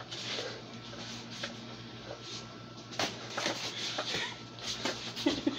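Boxing gloves thudding and slapping irregularly as punches land and are blocked in sparring, with shuffling feet; the knocks come thickest from about halfway through, and a short grunt sounds near the end.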